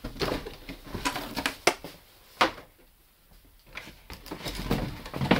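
Cardboard shoeboxes being handled and pushed down into a cardboard shipping carton: irregular rustling and scraping with a few sharp knocks.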